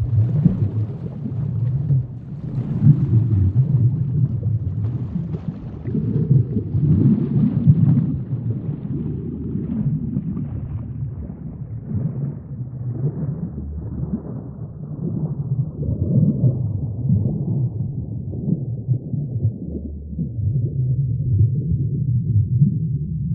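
Low, muffled rumble of moving water in an aquarium, swelling and easing irregularly; its brighter upper part dies away over the second half, leaving a duller rumble.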